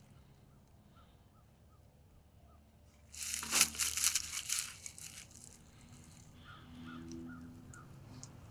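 Faint outdoor quiet with a soft chirp repeated about three times a second. About three seconds in, a loud rustling, crinkling noise close to the microphone lasts about two seconds, then dies down.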